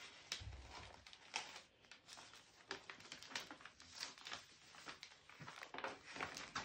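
Faint, scattered rustles and crinkles of a large sheet of taped-together paper being folded and creased by hand.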